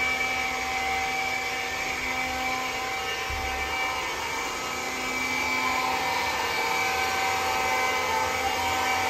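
iRobot Scooba floor-scrubbing robot running, its vacuum motor and pump giving a steady whine with several held tones over a whooshing noise.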